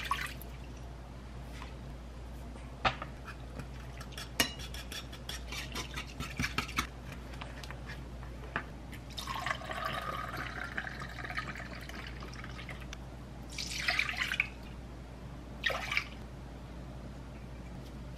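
Kitchen pouring: a short splash of water poured into a pan at the start, then light clicks and taps of containers. About nine seconds in, a thin stream of soy sauce pours into a plastic measuring cup for roughly three seconds, and two shorter pouring sounds follow near the end.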